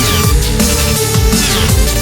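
Electronic music with a heavy bass beat and repeating falling synth sweeps.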